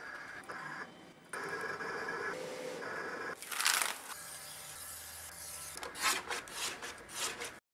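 A Roland VersaSTUDIO printer/cutter runs with a steady hum, then a hand brushes across printed vinyl decal sheets with one loud swish. Near the end come several short, sharp scraping strokes as the decal sheets are trimmed with a blade.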